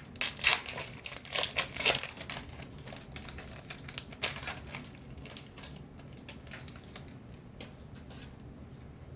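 Plastic-foil trading card pack wrapper crinkling and tearing as it is opened by hand, with dense crackles for the first couple of seconds and a last few crinkles about four seconds in.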